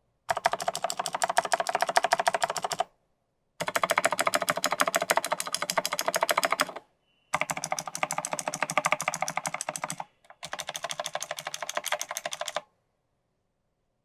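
Mechanical keyboard with Kailh Pro Light Green click-bar clicky switches, on an alumina plate in a plastic case, being typed on fast. Four runs of rapid keystrokes are separated by short pauses, and each press gives a sharp click.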